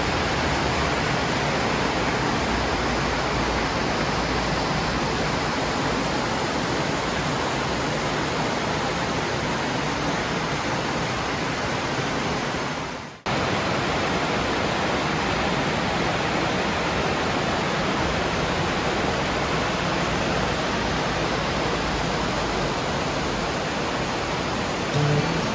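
Rushing water of a small waterfall and creek rapids pouring over rock ledges, a steady even rush. The sound cuts out for an instant about halfway through, where one shot of the water gives way to another.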